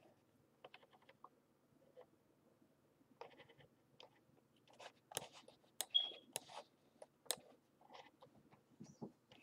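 Faint, irregular clicks of a computer mouse being clicked and scrolled, with a cluster of sharper clicks around the middle.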